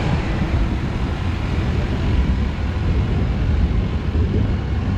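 Road-rail utility truck's diesel engine running as it moves along the tram tracks towing a historic tram: a steady, low rumble.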